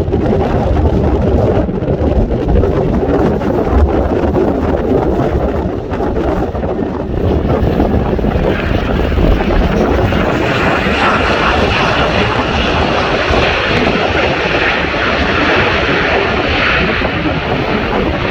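Fixed-wing aircraft landing in high wind: a continuous loud roar of engine and rushing air. A brighter, hissier roar builds about eight seconds in and holds.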